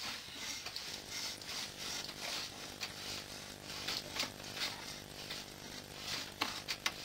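Drain inspection camera's push rod being fed down the pipe: repeated short scraping hisses, about two or three a second, over a steady hum that starts about a second in. A few sharp clicks near the end.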